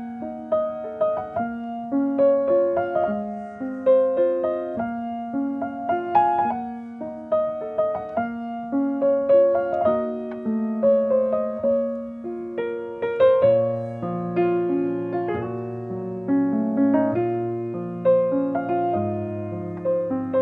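Solo piano playing a gentle waltz melody, note by note. Lower bass notes come in under the tune about two-thirds of the way through.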